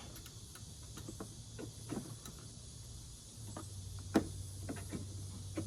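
Small clicks and taps of a Phillips screwdriver tightening the cable screw on a generator starter battery's negative terminal, with one sharper click about four seconds in. A low steady hum starts about three and a half seconds in.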